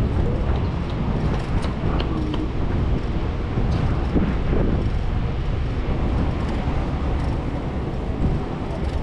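Road traffic noise with a steady low rumble of wind on the microphone of a camera on a moving bicycle.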